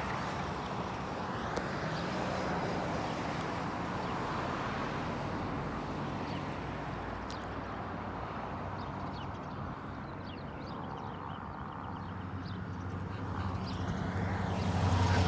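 Police helicopter circling overhead, a steady distant drone over outdoor street ambience, its low hum growing louder near the end. Faint bird chirps come in the middle.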